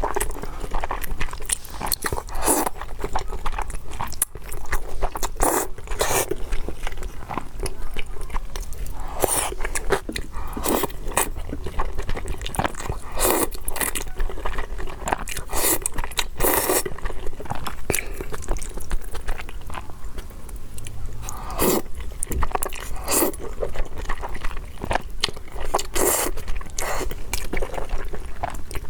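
Close-miked eating of zhajiangmian noodles: repeated bites and chewing, with short noisy strokes every second or two.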